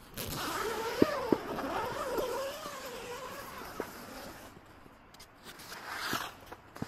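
Tent door zipper being pulled open: one long raspy slide lasting about three and a half seconds. Near the end comes a short rustle of tent fabric as the flap is pushed aside.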